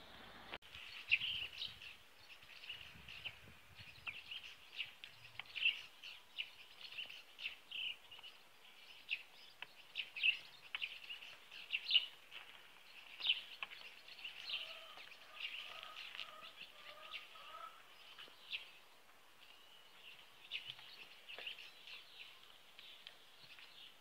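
Small birds chirping in quick, repeated short calls; in the middle a second, lower warbling call joins for a few seconds.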